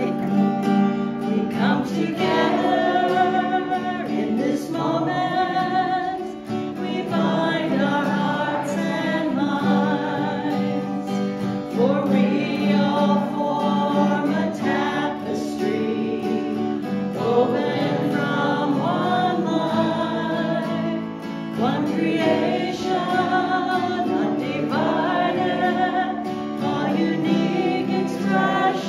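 Group of voices singing a welcome song together, accompanied by a strummed acoustic guitar.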